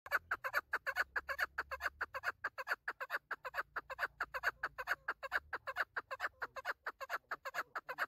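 Female chukar partridge (chakor) calling in a rapid, even run of short notes, about six a second.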